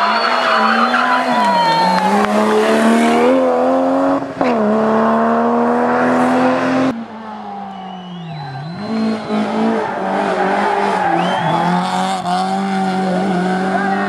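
Rally car engines at full throttle. First a BMW E30's engine revs hard out of a hairpin, climbing in pitch with a sharp drop as it shifts up, and the tyres squeal. Then a second, hatchback rally car's engine dips and climbs as it accelerates hard up the road.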